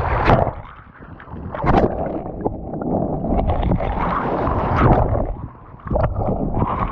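Wind buffeting the microphone: a rough, uneven low rumble that drops away briefly twice.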